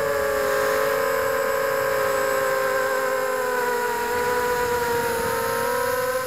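FPV multirotor's electric motors and propellers whining steadily in flight, heard through the onboard camera. The pitch sags a little in the middle and rises again near the end.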